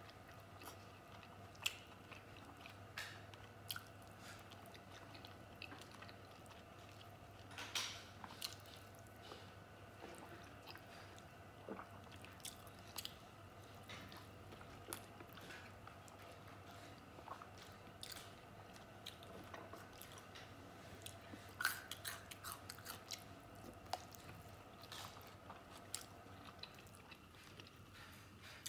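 Faint chewing and wet mouth smacks of a person eating soft stewed fatty pork, as irregular small clicks throughout, with a few louder smacks about a third of the way in and again about three quarters through.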